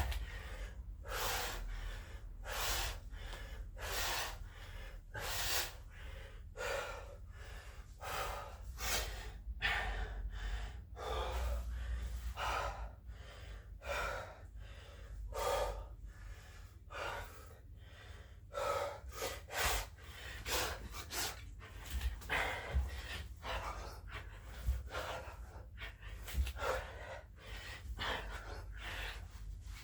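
A man breathing hard and fast from exertion, with loud gasping breaths about once every second, over a low steady hum.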